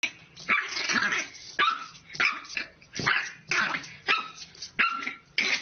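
A French bulldog puppy barking at its own reflection in a mirror: a quick series of short, high-pitched barks, about two a second.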